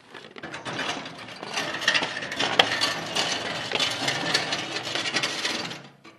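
Old steel fertiliser spreader dragged across a concrete yard, its frame and spinner scraping and rattling on the ground with many small clicks; the noise stops shortly before the end as it is set down.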